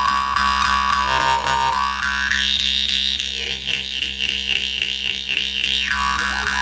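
Khomus (Yakut jaw harp) played into a microphone: a steady low drone under a shifting overtone melody. A little past two seconds in the melody jumps to a high pitch and pulses about three or four times a second, then falls back near the end.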